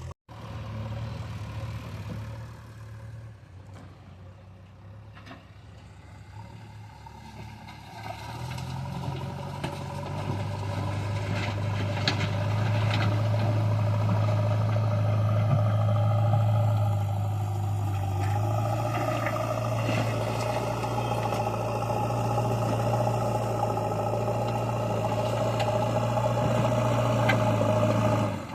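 Diesel engine of a JCB backhoe loader working, running steadily and growing louder about eight seconds in, with a few metallic clanks.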